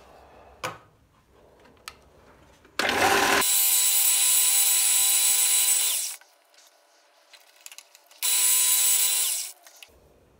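Ryobi BDS-1010 belt sander's motor and belt run for about three seconds, then stop. The sander runs again for about a second, then stops. A few light knocks of handling come before the first run.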